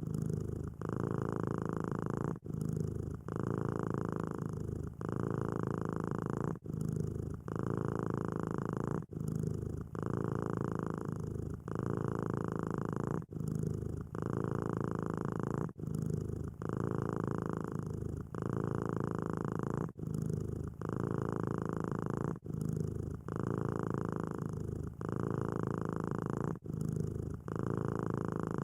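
Domestic cat purring steadily and close up, a low rumble that switches back and forth with each breath in and out. It breaks very briefly about every two seconds.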